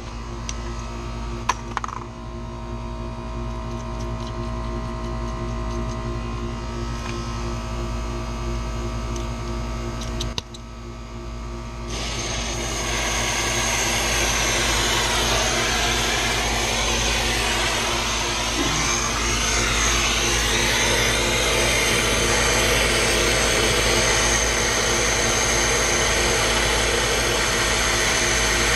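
A steady mechanical hum of running machinery, with several fixed tones over a low rumble; about twelve seconds in it grows louder and a broad hiss like rushing air joins it.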